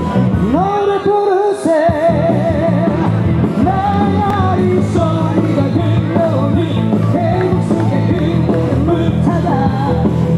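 Music: a rock/pop song with a singing voice that wavers in pitch, over a steady bass and beat.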